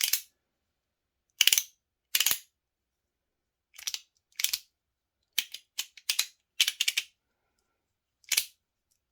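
Titanium MOT Rhythm fidget toy being worked through its detents, giving sharp, snappy metal clicks. Some come singly and some in quick runs, at uneven intervals.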